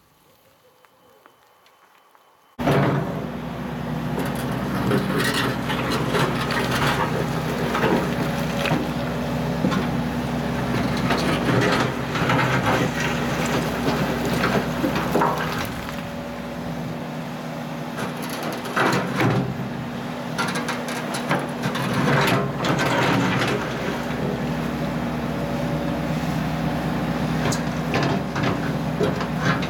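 Near silence for about two and a half seconds, then an 18-tonne Case excavator's diesel engine running steadily under load as its bucket digs through freshly blasted granite rubble, with irregular clunks and scrapes of rock against the steel bucket.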